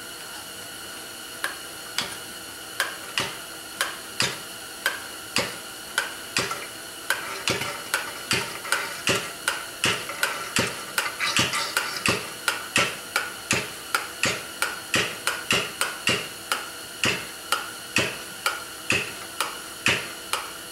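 Yamaha WR250F fork leg being pumped up and down by hand, its tubes knocking together at each stroke, about two knocks a second with a short metallic ring. The pumping forces out old fork oil so thick and neglected it looks like peanut butter.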